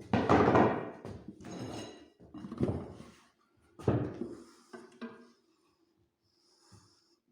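Metal clunks and knocks as a wheel is taken off a manual tire-changing stand: one loud clunk at the start, then several smaller knocks over the next few seconds.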